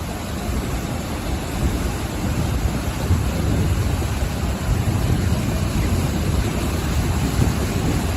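Ocean waves breaking and washing on the shore, a steady deep rushing with a slight swell about three seconds in, mixed with wind buffeting the microphone.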